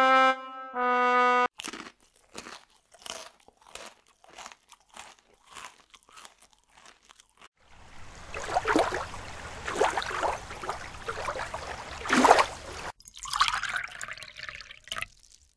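A string of cartoon sound effects. First a few brass-like notes, ending about a second and a half in. Then a run of short crunching steps for climbing a tree, several a second, and from about eight seconds a stretch of splashing with a low rumble for swimming, which gives way near the end to a short falling tone.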